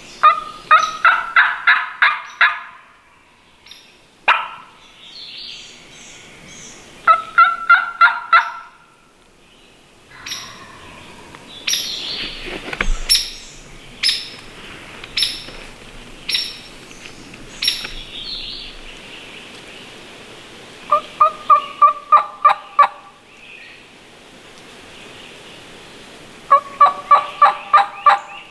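Turkey yelping in four runs of about six to eight evenly spaced yelps, roughly four a second: near the start, about seven seconds in, about twenty-one seconds in and near the end. In the middle stretch, sharp high chirps come about once a second.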